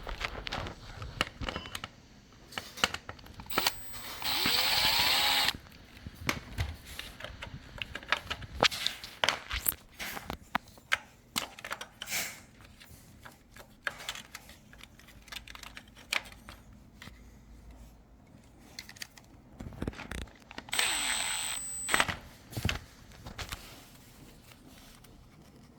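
Cordless drill-driver run twice in short bursts of about a second each, driving or removing screws, with clicks and knocks of parts being handled in between.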